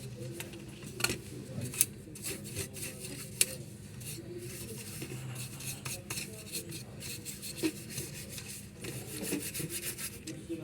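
Hand work on an HP LaserJet printer's parts: a steady run of rubbing and scraping with sharp clicks and small knocks scattered throughout, over a low steady hum.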